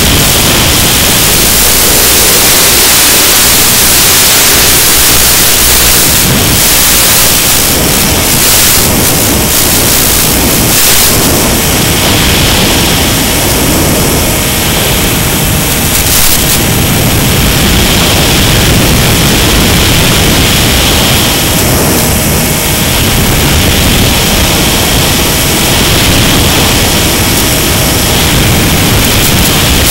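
Loud, steady static hiss on the audio of an analog FPV video-link recording from a model plane in flight, with no clear motor tone through it.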